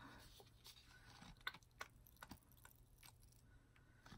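Near silence: room tone with a few faint, scattered small clicks, as of plastic paint cups and a squeeze bottle being handled.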